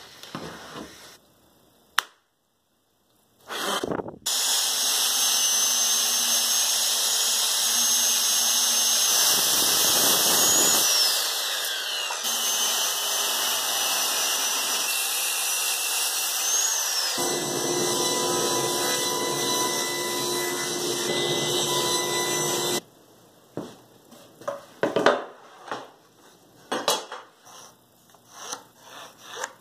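Handheld circular saw running and cutting through a long sheet of plywood for about eighteen seconds, its motor whine sliding in pitch as the load changes. After it stops, short scratches and taps of pencil marking on plywood.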